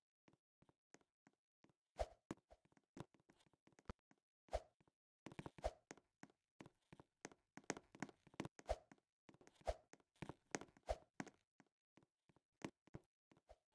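Faint irregular knocks and clicks, with a louder thump about once a second through the middle stretch.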